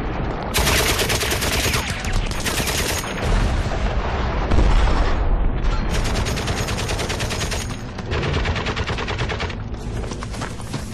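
Several long bursts of rapid machine-gun fire, with a deep rumble running underneath.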